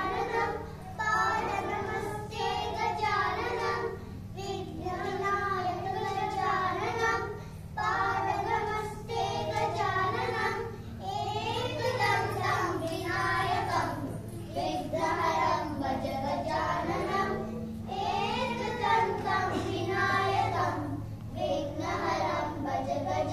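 A group of young children singing a song together, with a steady low hum underneath.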